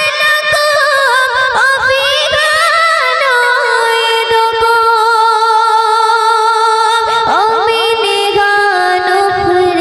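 A young woman singing a Bengali gojol, an Islamic devotional song, into a handheld microphone. She sings ornamented, wavering runs, then holds one long note that drops lower near the end.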